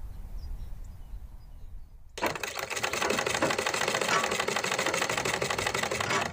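Black USHA household sewing machine running, a fast, even needle clatter that starts about two seconds in. Before it, only a faint low rumble.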